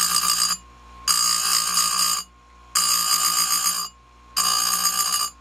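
Electric bench chainsaw-chain grinder sharpening saw-chain cutters: the spinning stone grinds with a loud ringing screech for about a second at a time, four times, dropping back to the motor's steady whine in the short pauses as the wheel lifts between cutters.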